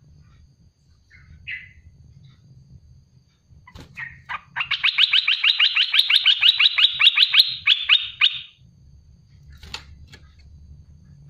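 Olive-winged bulbul calling: a short single note, then about halfway in a fast, even volley of clear repeated notes, about six a second, lasting about four seconds.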